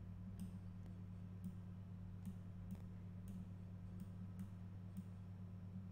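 Computer mouse buttons clicking faintly about a dozen times at uneven intervals, over a steady low hum.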